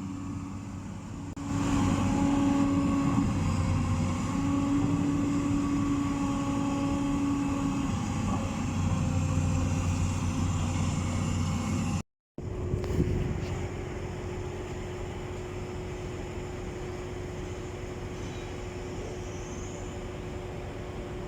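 A large engine running steadily; it grows louder about a second and a half in and changes pitch a few times. After an abrupt cut near the middle, a quieter, even engine hum takes over.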